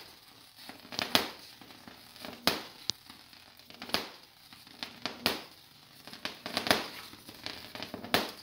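High-voltage arc of a Jacob's ladder driven by a homemade ZVS driver, crackling with a sharp snap about once a second as the arc breaks and re-strikes between the rods. It cuts off abruptly at the end.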